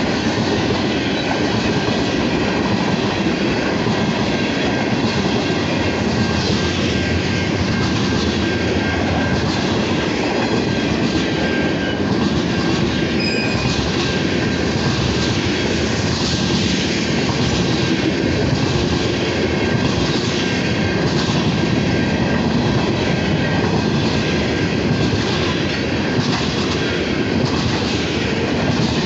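Norfolk Southern manifest freight train's tank cars and covered hoppers rolling past at a steady speed: a continuous, loud rumble and rattle of steel wheels on the rails.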